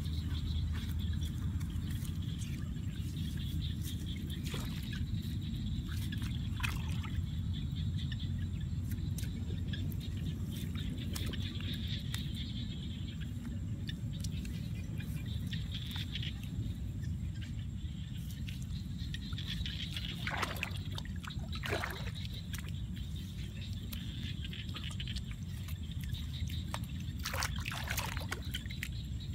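Hands splashing and scooping mud in shallow muddy water, with scattered splashes and trickles that bunch up past the middle and near the end. Under it runs a steady low rumble and a faint steady high hiss.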